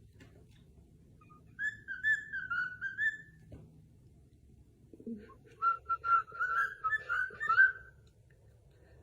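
A pet parrot whistling two short warbling phrases, each a second and a half to two seconds long, with a pause of about two seconds between them.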